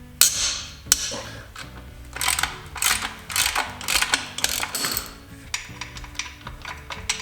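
Hand tools working on a dirt bike's metal parts: quick clicks, rattles and scrapes of wrenching and parts being handled, densest in the middle, over background music.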